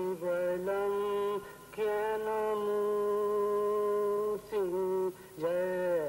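A man chanting a slow devotional chant in long held notes, sliding in pitch between them, with short pauses for breath.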